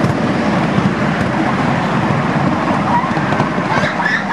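Steady, rough rumble and rattle of a miniature ride-on railway train running along its track, heard from a passenger car.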